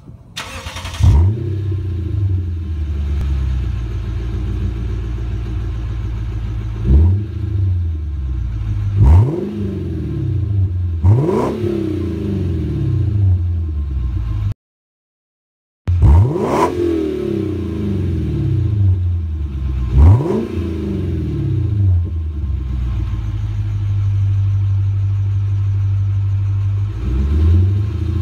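Lexus IS F's 5.0-litre V8 through Flowmaster Super 40 mufflers: it starts with a loud flare about a second in, settles to a steady idle, and is revved in short throttle blips several times. The sound cuts out briefly midway.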